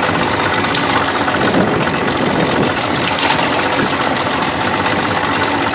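Boat outboard motor running steadily at low trolling speed.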